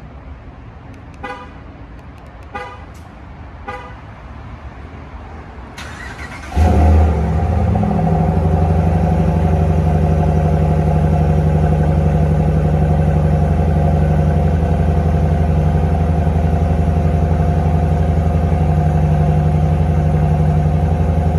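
Three short chirps about a second apart, then a 2021 Ram 1500's 5.7-litre HEMI V8 cranks and fires about six seconds in. It flares briefly and settles into a steady, low cold-start idle through a straight exhaust with the resonator and muffler deleted.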